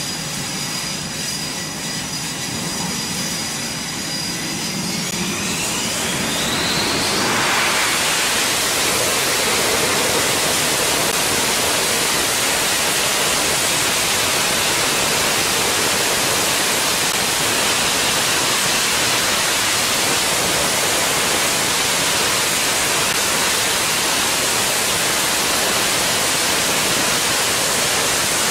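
F/A-18 Super Hornet's twin GE F414 jet engines running up on the catapult. A turbine whine rises in pitch about five to seven seconds in. It then gives way to a steady, loud roar as the engines are held at full launch power.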